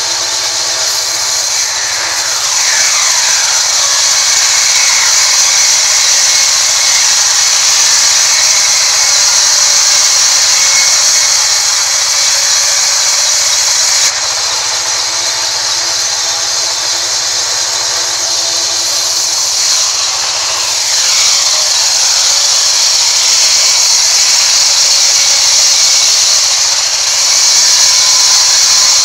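Band sawmill blade cutting lengthwise through a mahogany log: a loud, steady, high-pitched saw noise over the machine's running hum, with a brief falling whine twice.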